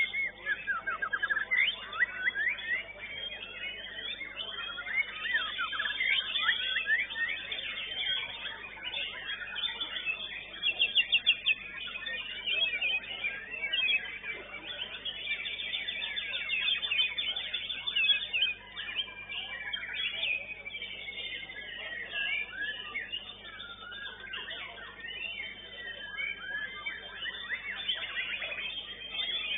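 White-rumped shama (murai batu) singing in a contest cage: a fast, varied song of clear whistles, glides and runs of rapid repeated notes, the loudest run about eleven seconds in, with other caged songbirds singing around it.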